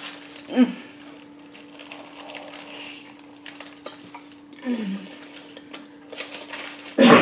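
Close-miked eating of a big burger: chewing with the paper wrapper crinkling and crackling in the hands, with a loud burst of crinkling near the end.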